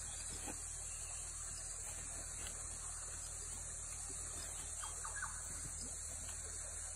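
A steady, high-pitched insect drone from the surrounding bush, with a few faint short chirps about five seconds in.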